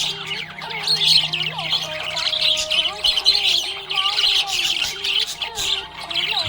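Budgerigars chirping and chattering continuously in quick, overlapping high chirps, over a faint wavering background melody.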